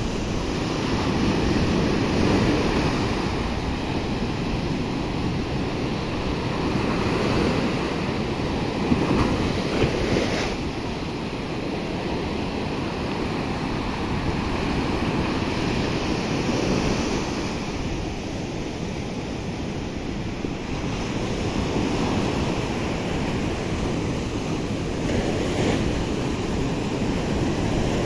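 Small surf breaking and washing up a sandy beach, a steady wash of water that swells and falls back every few seconds.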